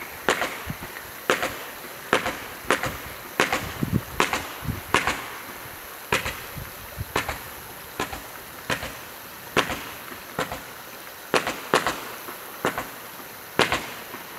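Fireworks going off: a string of sharp bangs and cracks, about one a second and unevenly spaced, over a steady hiss.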